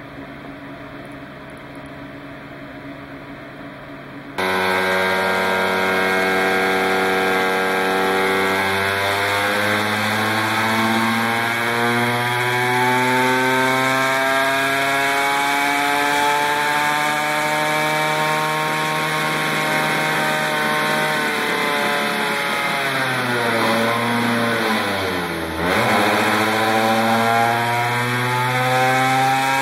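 McCulloch MC49 80cc two-stroke kart racing engine running flat out on an inertia dyno. It comes in abruptly about four seconds in, then its pitch climbs steadily for nearly twenty seconds as it spins up the dyno, drops sharply, and climbs again near the end.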